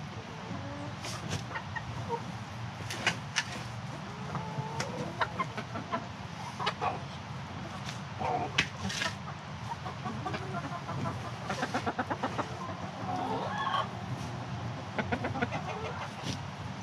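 Hens clucking around a steel shovel that scrapes, scoops and throws dirt into a hole in the run, with many short sharp scrapes and knocks scattered through.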